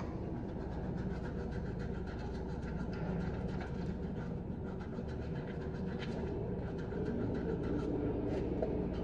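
Steady low background rumble with faint rapid scratchy ticks over it.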